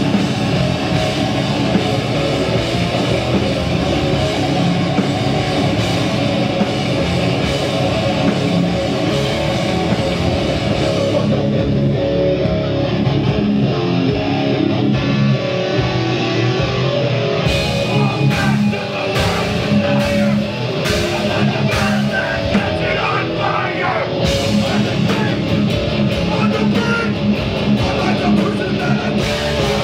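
Rock band playing live, electric guitars and drums loud in the room. About eleven seconds in, the cymbals drop out and the guitars carry on alone. Separate drum hits come back near eighteen seconds, and the full band plays again from about twenty-four seconds.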